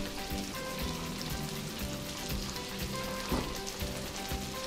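Chicken pieces sizzling in a frying pan, under soft background music with short notes changing pitch about every half second.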